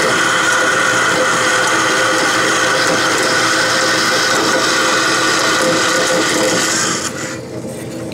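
Vertical metal-cutting bandsaw blade cutting steadily through metal bar stock. About seven seconds in the blade breaks through, the piece is cut off, and the sound drops to the saw running free.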